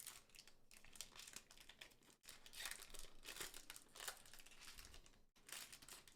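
Foil wrapper of a One Piece Card Game booster pack crinkling as it is handled, a soft run of crackles and rustles.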